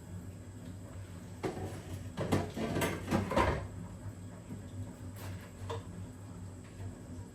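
Kitchen handling noises: a short run of knocks and rattles, loudest between about two and three and a half seconds in, then a few light clicks, over a steady low hum.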